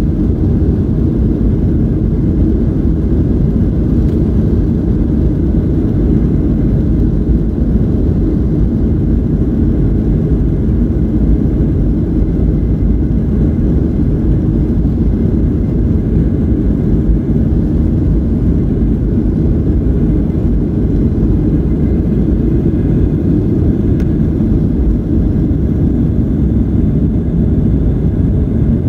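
Boeing 737-800's CFM56-7B engines at takeoff thrust, heard from inside the cabin during the takeoff roll: a loud, steady, deep roar.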